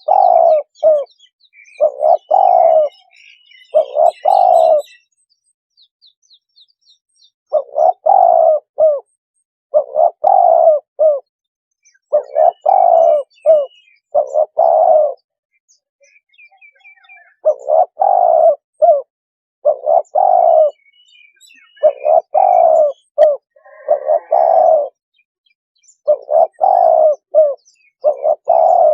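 Spotted dove cooing: a short phrase of low coos repeated about every two seconds, with two longer pauses. Faint chirps of small birds sound behind it.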